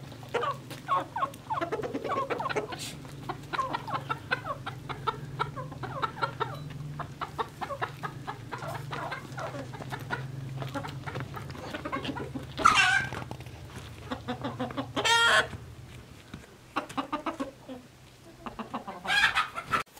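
Chickens clucking with quick, rapid calls, with a few short, louder calls from the flock about two-thirds of the way through and near the end. A low steady hum lies underneath until about four-fifths in.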